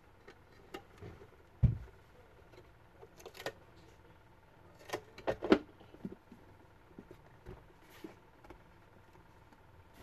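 Hands handling and pressing together the plastic casing of a Nikai Bluetooth speaker during reassembly: scattered clicks and knocks of plastic parts, the loudest knock about one and a half seconds in and another cluster around five seconds in.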